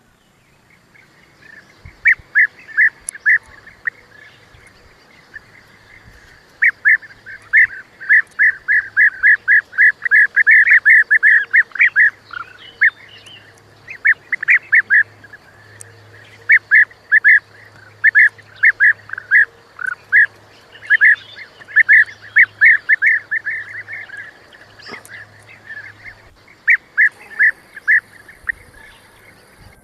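A bird calling in runs of short, sharp, repeated notes, about four a second, with short pauses between the runs.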